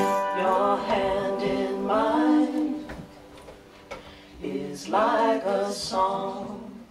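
Voices singing with the band's instruments dropped away, nearly a cappella: two sung phrases with a quieter gap about three seconds in.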